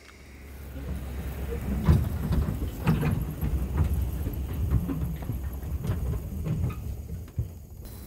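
Pickup truck running with a loaded hay wagon hitched behind it, a low rumble fading in with irregular rattling and clanking from the wagon; it eases off near the end.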